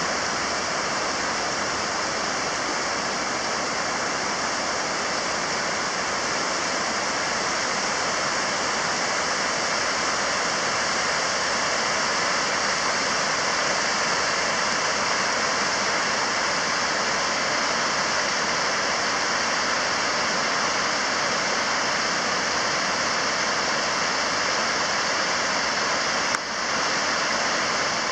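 Floodwater of the swollen Júcar river rushing over the stones of a weir: a steady, even rush of white water, with a short click near the end.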